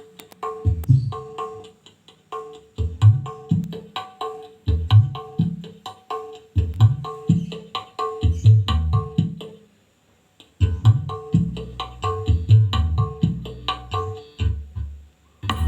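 Percussion-led music with a repeating beat of deep bass hits, played through a sound system with two 8-inch speakers for a sound check. The music drops out for about half a second around ten seconds in.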